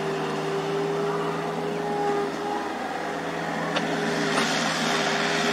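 Diesel engines of a JCB JS205 tracked excavator and a second excavator beside it, running steadily while digging. One sharp click comes a little after halfway.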